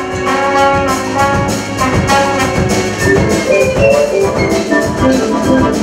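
Large instrumental ensemble playing live: winds and horns carry a moving melody over a drum kit and hand percussion, with steady drum strokes.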